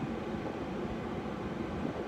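Steady low rumble inside a car's cabin: the parked car's engine idling with its ventilation fan running.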